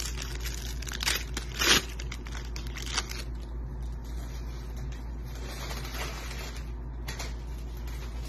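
A trading card sliding into a rigid plastic top loader, a scraping rustle with its loudest swish a little under two seconds in, followed by softer rustling as a stack of cards is handled.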